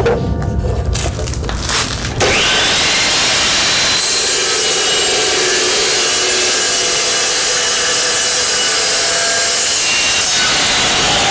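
A few knocks as stock is set in the saw, then about two seconds in an Evolution Rage 2 multi-material chop saw starts with a quickly rising whine and runs steadily through a cut in steel.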